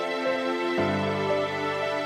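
Background music: soft held chords, with lower bass notes coming in under them a little under a second in.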